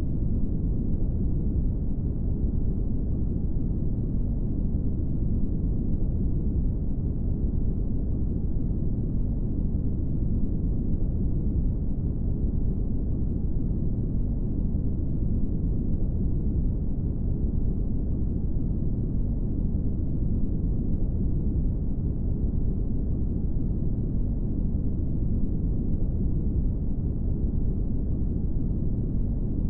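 Brown noise: a steady, even deep hiss, strongest in the bass and fading away toward the treble, with no change throughout.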